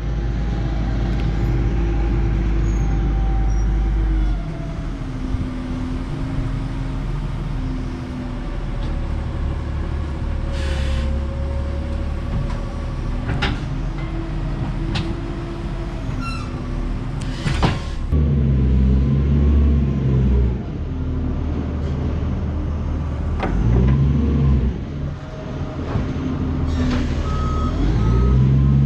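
Heavy lorry's diesel engine running, its pitch rising and falling several times as the revs change. A few sharp knocks come through about halfway.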